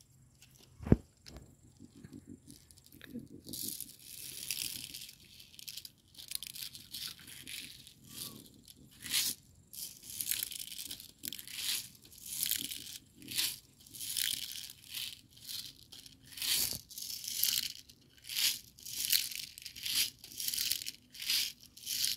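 Steel 4.5 mm BBs rattling inside a plastic BB bottle and quick loader as they are shaken, in short rhythmic bursts about one and a half times a second from about three seconds in; the shaking frees balls that get blocked in the loader's small opening. A sharp knock about a second in.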